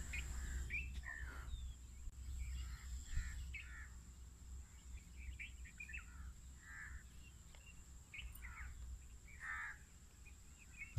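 Faint, scattered calls and chirps from several birds, over a steady high thin tone and a low rumble.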